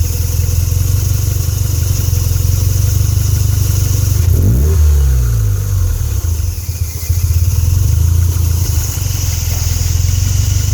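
Car engine idling roughly, with an uneven low pulsing, plus one brief rev of the throttle about four seconds in that rises and falls back to idle.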